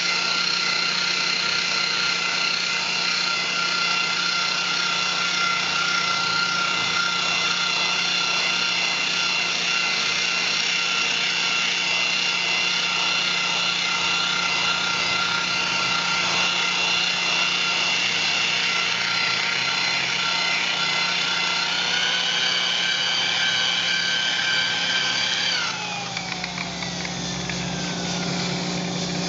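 Makita electric polisher with a wool pad running steadily on a solid surface countertop, a constant motor whine whose pitch rises slightly about 22 seconds in. About 26 seconds in it is switched off and the whine falls away as the pad spins down.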